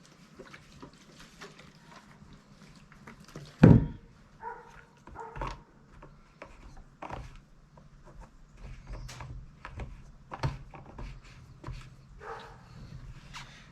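Handling sounds while a Husqvarna 435 chainsaw is refuelled: scattered clicks and knocks of caps and containers, with one loud thump about four seconds in. A few short whining sounds come between them.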